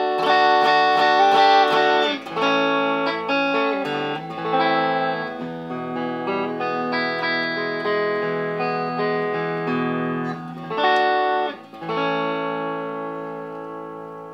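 Donner DTC-100W Telecaster-style electric guitar in its series pickup setting, playing picked chords and single notes; near the end a fresh chord is struck and slowly rings out.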